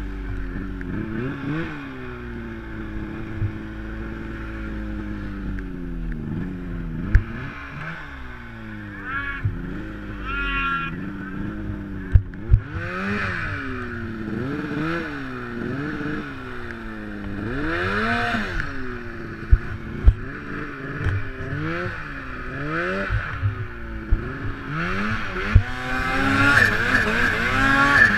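Turbocharged Arctic Cat M8 snowmobile's two-stroke engine revving up and down again and again as it works through deep snow, the revs swinging faster in the second half, with a few sharp knocks.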